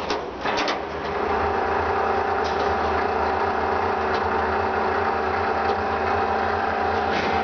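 Shibaura KRTC-11A rotary surface grinder running under power: a steady mechanical hum, with a few clicks near the start and a steady whine setting in about a second in.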